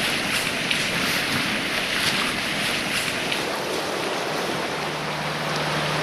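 Steady rushing of flowing water, with a low steady hum joining about five seconds in.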